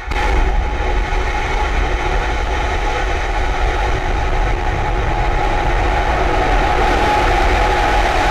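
Starhopper's single Raptor methane rocket engine firing at liftoff: a loud, steady rumble and roar that sets in suddenly and holds without a break.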